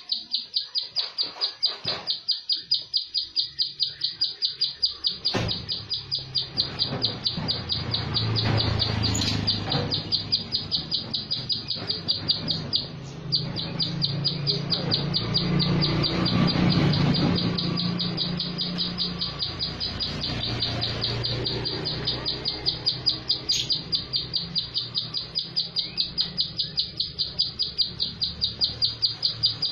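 Plain prinia (prenjak sawah) calling in a long, rapid string of sharp, evenly spaced high notes, kept up without a break. A low rumble sits under the calls through the middle, with a few clicks.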